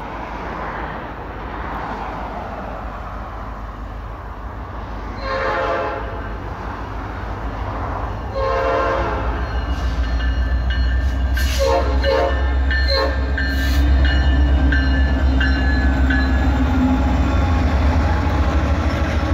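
Norfolk Southern diesel locomotives approaching and passing on an intermodal freight train. The air horn sounds two long blasts, then shorter ones, and the heavy engine rumble grows louder as the locomotives go by.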